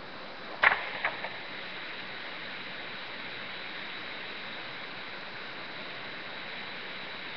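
Steady hiss, with three short sharp clicks in quick succession about a second in, the first one the loudest.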